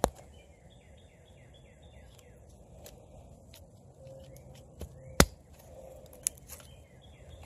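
A Quickhatch Quicklore fixed-blade knife is being batoned through a small stick. There is a sharp wooden knock at the start, a few lighter taps, and a louder knock about five seconds in as the stick splits. A small bird calls a quick series of about five short descending chirps about a second in, and calls again near the end.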